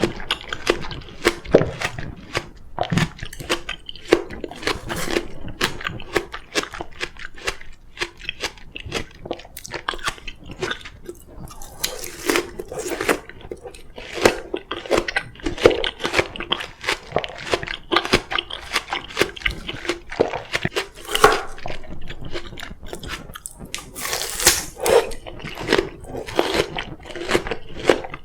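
Oriental melon being bitten and chewed close to the microphone: a dense, irregular run of crisp, wet crunches.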